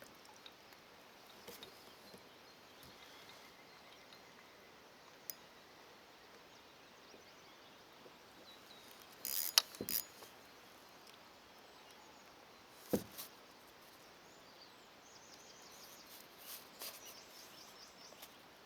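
Quiet outdoor background hiss broken by a few brief knocks or clicks: a cluster about halfway through and a single one a few seconds later.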